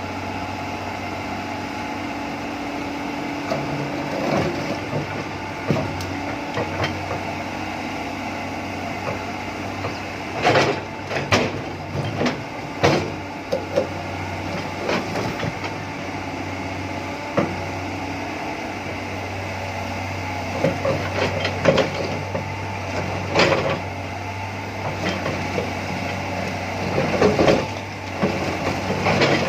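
Excavator running steadily, with irregular knocks and crunches of digging, clustered in several bursts.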